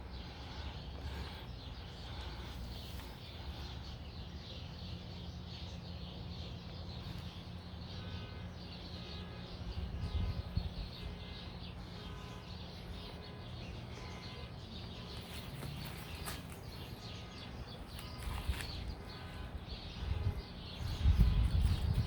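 Quiet outdoor ambience: a low steady hum with faint bird chirps repeating through the middle, and a few dull bumps of handling or wind on the microphone near the end.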